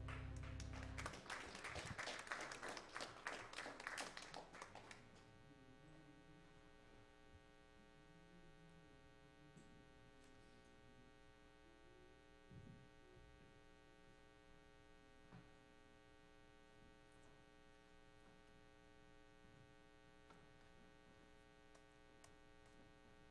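The music's last note dies away, and a few seconds of hand clapping follow. After that only a steady electrical mains hum from the amplified sound system remains.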